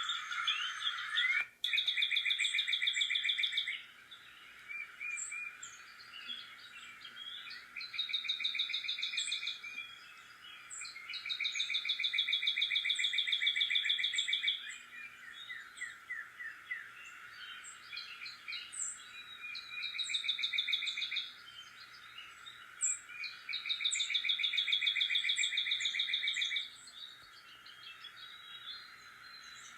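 Songbirds: one bird sings a rapid, even trill lasting two to three seconds, about five times over, with short high chips from other birds between the trills and a steady background hiss.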